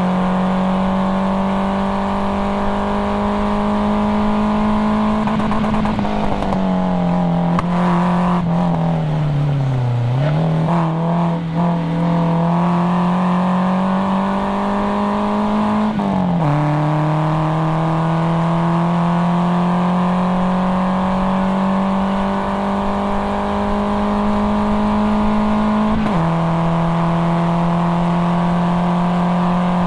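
1997 Nissan 240SX's KA24DE four-cylinder engine working hard on track. It slows for a corner with the revs falling and quick throttle blips on the downshifts, then pulls back up through the revs, with sharp drops in pitch at two upshifts about 16 and 26 seconds in.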